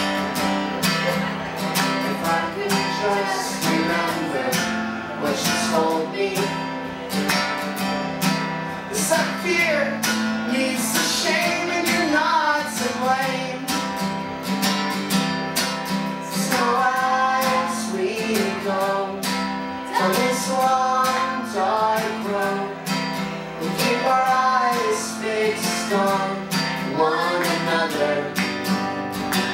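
Acoustic guitar strummed steadily, with a sung melody over it from about nine seconds in.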